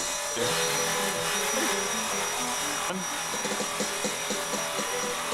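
Electric Blade 400 RC helicopter running with a single counterweighted main rotor blade, motor and rotor turning steadily. It makes a steady high whine over a rushing noise.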